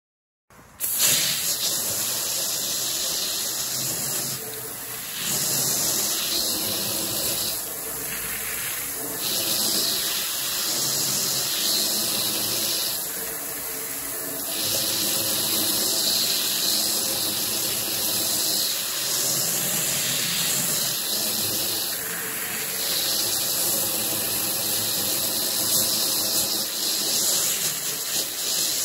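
Water from a hose spray nozzle hitting a window and the housewrap around it: a steady hiss of spray that starts about half a second in and dips briefly a few times as the stream shifts.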